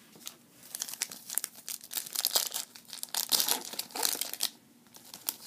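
Foil wrapper of a Bowman Platinum baseball card pack being torn open and crinkled by hand. A dense run of sharp crackles starts about a second in and stops around four and a half seconds.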